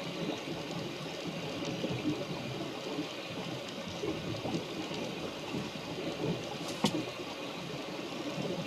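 Steady rushing noise of rain and water, with one sharp click about seven seconds in.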